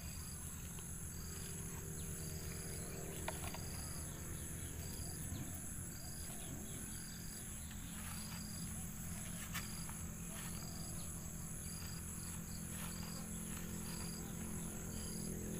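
Insects chirping in an even, repeating pulse about twice a second, over a steady low hum, with a few light clicks as plastic pipe fittings are handled on a water pump.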